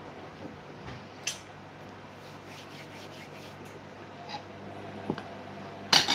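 Handling noise of a phone: rubbing against the microphone with a few sharp taps, the loudest near the end, over a steady faint hum.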